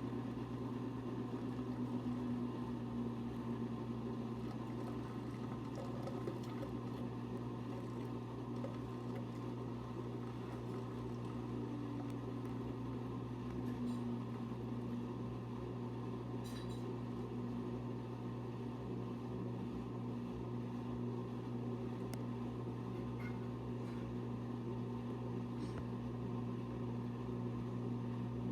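A steady low mechanical hum that holds the same level throughout, with a faint tone above it that wavers a little in pitch.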